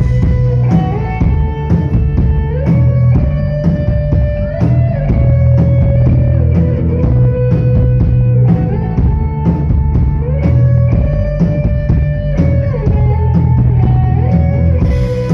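Rock music: a drum kit plays a busy, steady beat under a melody of held notes on a guitar or similar instrument, with no singing.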